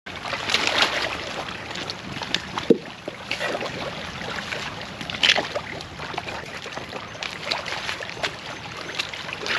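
Water splashing and sloshing in uneven bursts, with a sharp knock about three seconds in.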